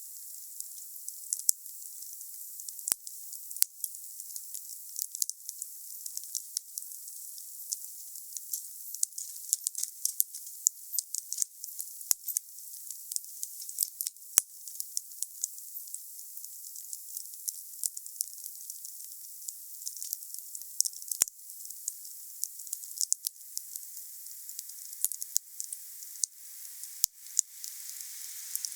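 Wood campfire burning with a steady hiss and irregular crackles and sharp pops, several every second.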